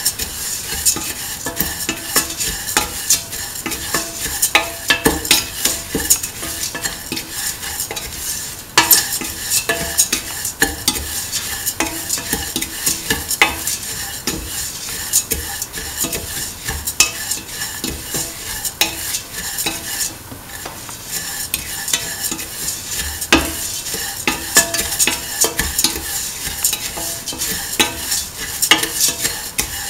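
A spatula stirring and scraping beaten rice flakes being sautéed in ghee in a steel pan: constant quick scrapes and rattles of the dry flakes against the metal over a steady sizzle.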